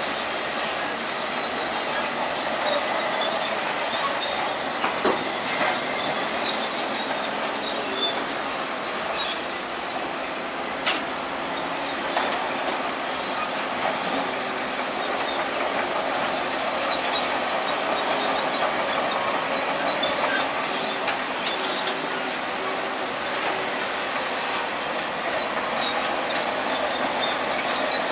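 Heavy earthmoving machinery at work: a bulldozer running, with its steel tracks clanking and squealing, plus a few sharp metallic clanks.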